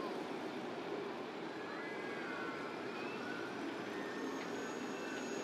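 Steady low rumble of a River Class ferry's engines running while it is tied up at the wharf. A few faint wavering high tones rise and fall partway through.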